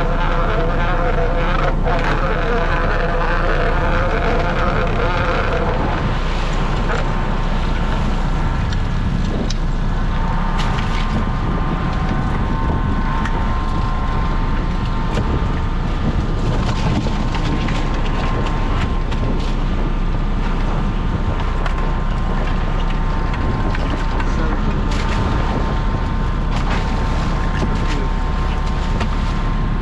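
Crab boat's engine and hydraulic pot hauler running steadily, with wind noise on the microphone. A higher drone sounds for about the first six seconds, and there are occasional knocks of the crab pot's frame and gear.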